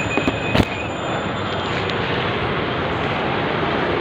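Steady street traffic noise, with a couple of sharp clicks in the first second.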